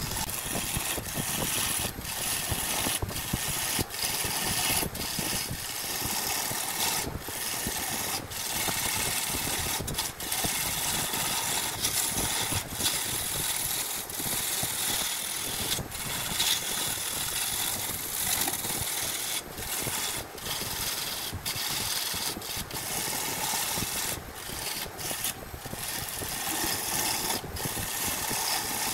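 Turning tool cutting into a spinning glued-up wooden cylinder on a wood lathe: a steady shaving, scraping noise, broken now and then by brief gaps where the tool lifts off the wood.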